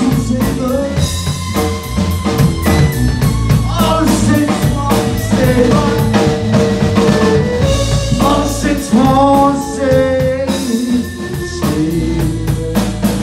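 Live band playing: drum kit keeping a steady beat under bass guitar, strummed guitar and a violin melody.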